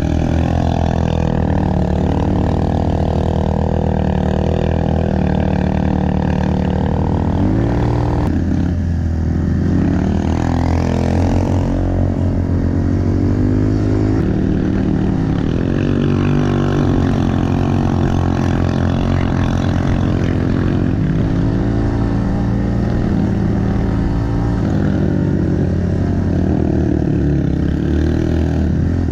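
Pit bike engine running hard, its pitch rising and falling again and again as it revs up and drops back through the gears.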